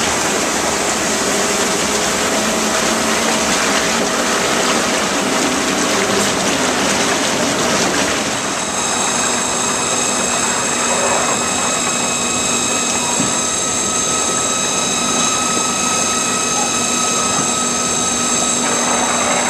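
Electrolyte rushing into the Blue Arc machine's tank as it fills, a loud steady gush of liquid. About eight and a half seconds in, it gives way to the machine running its cut: steady churning of the high-pressure flush in the submerged tank, with a steady whine of several tones from the machine's pumps and drives.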